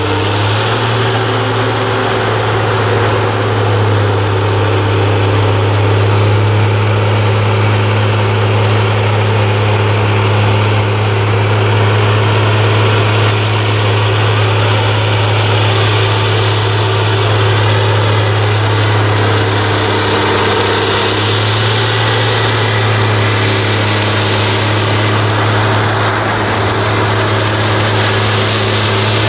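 Heavy diesel engine idling: a loud, steady, deep hum that does not change.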